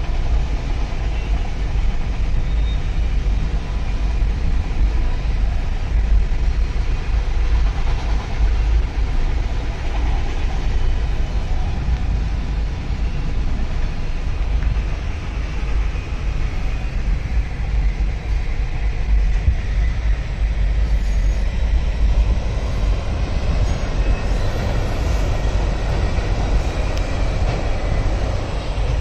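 Freight train of autorack cars rolling past, a steady low rumble that goes on without a break.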